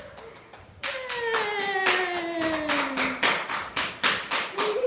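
Hands clapping in steady applause, about four to five claps a second, starting about a second in. Over the first couple of seconds of clapping a voice calls out in one long falling note.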